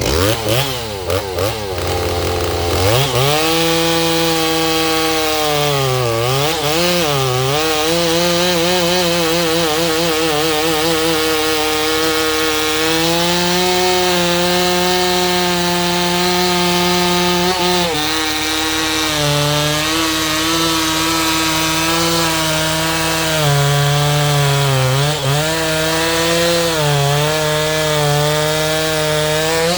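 Stihl MS 390 two-stroke chainsaw, fitted with a Hipa rebuild kit and new Hipa chain, idling briefly, then revved up about three seconds in to cut wood at full throttle. Its pitch dips several times as the chain loads in the cut, most deeply around six to seven seconds and again near the end. The engine is fresh from the rebuild and not yet fully broken in.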